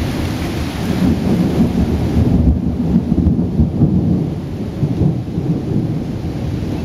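Thunder rumbling during a thunderstorm, over the steady hiss of falling rain. The rumble is heaviest about two to four seconds in.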